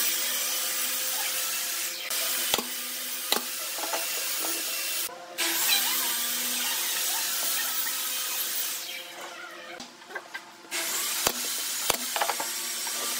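A loud steady hiss that cuts off and starts again abruptly a few times, with occasional sharp knocks of pine boards being set on the wooden workbench.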